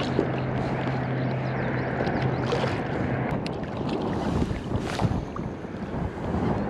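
Wind buffeting the microphone over choppy water lapping around a wading angler. A steady low hum stops about two seconds in, and a few sharp clicks follow.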